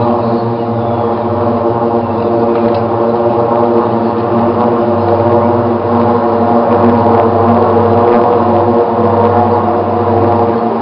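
Propeller aircraft passing in a parade flyover, their engines and propellers giving a steady, even drone.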